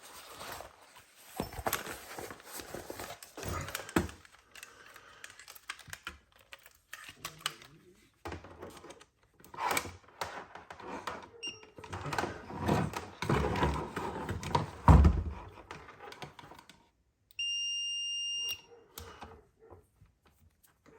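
Clicks, knocks and handling noise of a multimeter, its test leads and a small fuse being worked on a bench, with a heavier thump partway through. Near the end a multimeter gives one steady electronic beep lasting just over a second.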